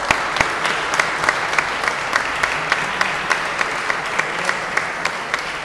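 Audience applauding, with one set of sharp claps close by at about three a second over the general clapping, which eases off near the end.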